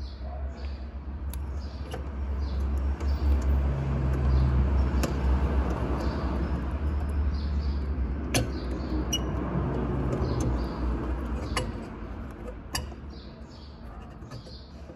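Scattered sharp clicks and scraping of plastic parts as a hand fumbles behind a car's headlight assembly in the engine bay, over a low rumble of handling noise from the phone held close. Small birds chirp in the background.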